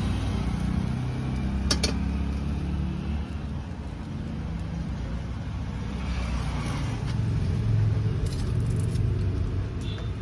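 Passing street traffic: motor vehicle engines rumbling steadily and swelling and fading, with one sharp click about two seconds in.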